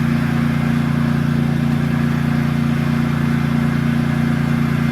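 An engine running steadily at a constant speed, a low, even drone with no change in pitch.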